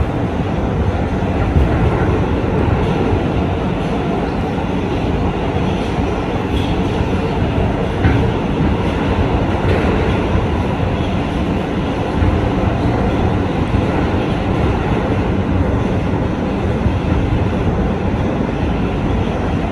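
Kawasaki R211A subway train running express through the tunnel, a steady loud rumble of wheels on rail with a few faint clicks.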